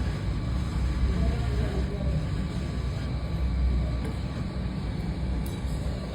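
Steady low rumble of background noise, with faint voices in it.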